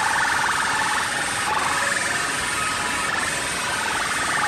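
Very loud DJ sound system playing, heard as a steady harsh buzz with little bass.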